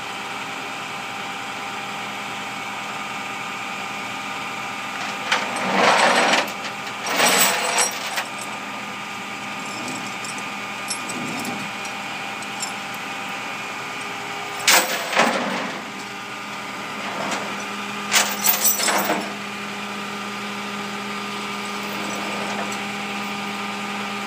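Flatbed tow truck running with a steady engine hum while a car is loaded onto its bed. Four loud harsh bursts, each about a second long, break the hum, two close together early on, one in the middle and one about three-quarters of the way through.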